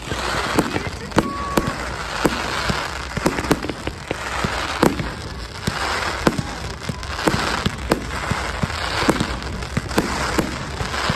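Fireworks display going off: a steady run of sharp bangs and pops over hissing, crackling noise that swells and fades in waves.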